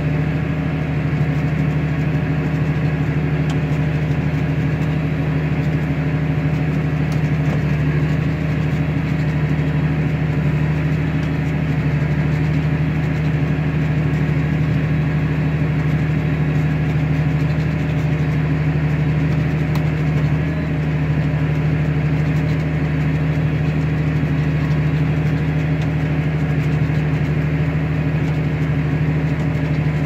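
Steady machinery drone heard from inside a tractor cab: the tractor's diesel engine running under load, with a John Deere 9660 STS combine harvesting and unloading alongside. A strong low hum holds at an even pitch and level.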